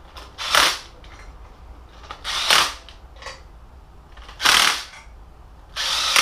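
Ridgid cordless impact driver with a deep socket hammering in short bursts, four times, as it runs the exhaust header bolts down snug against the aluminium cylinder head.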